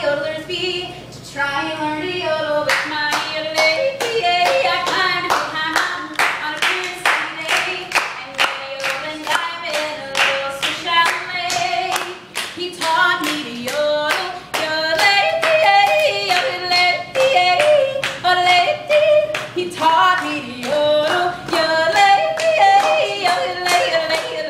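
A woman yodeling, her voice flipping quickly between low and high notes. From about two seconds in, a group claps along in a steady beat.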